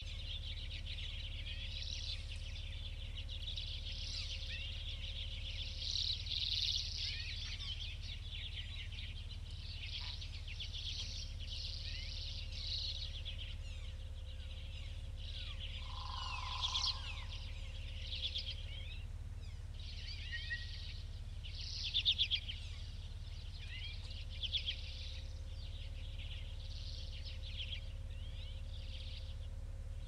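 Small birds chirping and twittering in bursts over a steady low hum, with one brief, lower mid-pitched call about halfway through.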